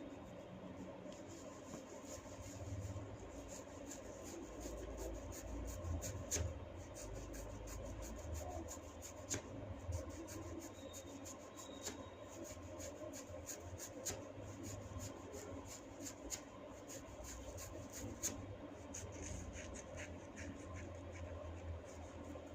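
Fingers rubbing and tugging through long hair, with many small, sharp, irregular crackles and snaps as the strands are worked.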